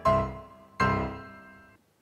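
Background music: two chords struck, the first at the start and the second just under a second in, each ringing and dying away.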